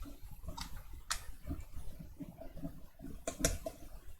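A few scattered clicks of computer keyboard keys being pressed, irregular and unhurried rather than steady typing.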